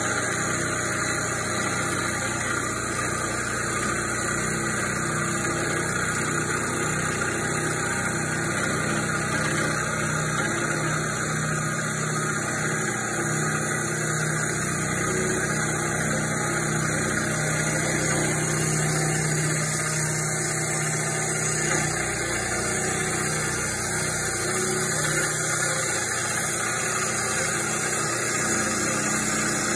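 Milling machine running with its end mill cutting across the face of a cast-iron Fairbanks Morse engine cylinder head: a steady machine hum and cutting hiss, with a faint squeal from the cutter.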